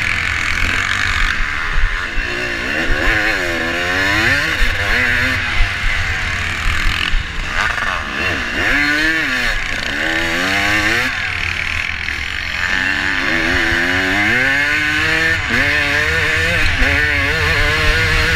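Vintage motocross motorcycle's engine heard from a camera mounted on the bike, its pitch climbing and dropping again several times as the rider accelerates and shifts along the track.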